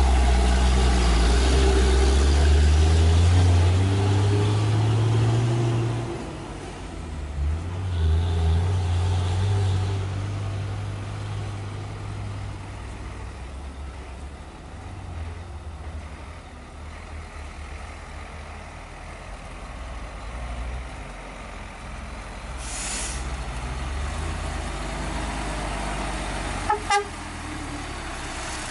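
Heavy diesel dump trucks on a dirt haul road: a loud, low engine under load whose pitch climbs during the first few seconds, then fades to a quieter steady rumble. A brief hiss comes about 23 seconds in, and two short horn toots near the end.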